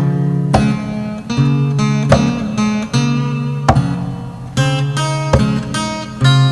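Music: strummed guitar chords at a steady beat, with no singing.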